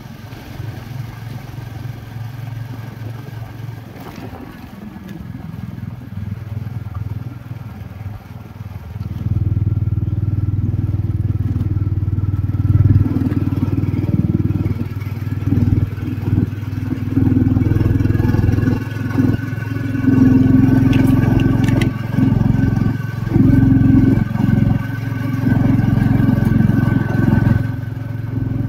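Motorcycle engine running while riding over a gravel road, with the tyres crunching on the loose stones. The sound gets noticeably louder about nine seconds in.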